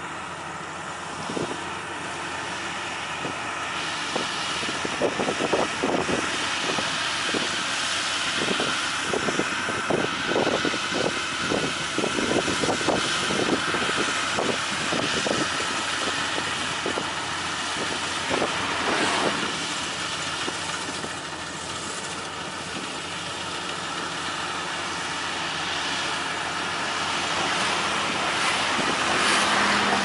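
Rice combine harvester running steadily as it cuts and threshes paddy, with a spell of rapid rattling knocks for several seconds near the start.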